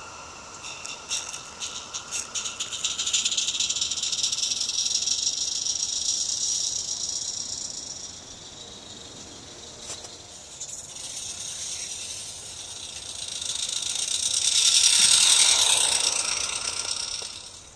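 Small live-steam garden locomotive (Roundhouse Katie) running along the track: a high, rapid hissing chuff of steam exhaust with a rattling clatter. It grows louder twice, is loudest shortly before the end, then drops away suddenly.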